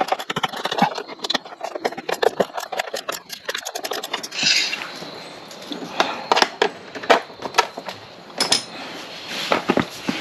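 Hands working on a motorcycle's plastic lower fairing: a quick run of clicks and rattles in the first few seconds, then scattered knocks and scrapes of parts and tools being handled.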